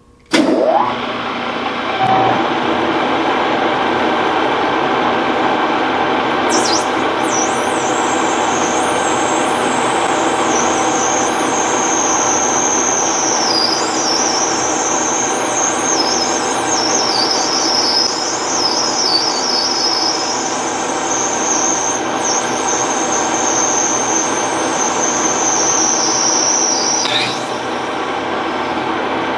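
Axelson engine lathe starting up and then running steadily while a parting tool cuts into a spinning nylon bar. From about six seconds in the cut gives a high, wavering squeal that stops shortly before the end, from a parting tool that the owner says can't be clamped tight enough.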